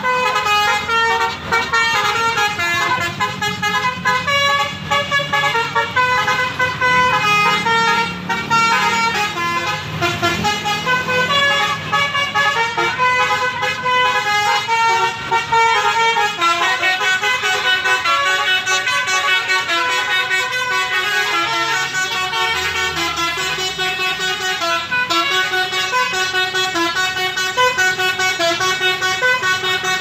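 Tour bus's multi-tone "telolet" (basuri) horn playing a melody: quick stepped notes one after another without a break, over a low engine rumble. The tune drops into a lower register about halfway through.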